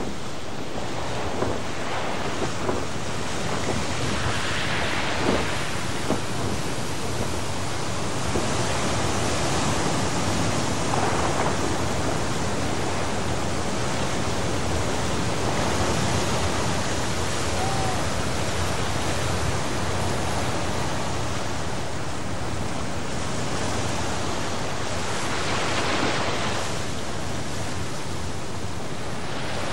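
Sea surf washing onto a rocky shore: a steady rush of waves that swells and eases every several seconds.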